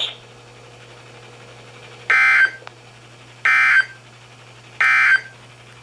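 Three short, identical buzzy data bursts about a second and a third apart: the EAS SAME end-of-message code sent by a NOAA Weather Radio broadcast to close the warning. Underneath runs a low steady hum.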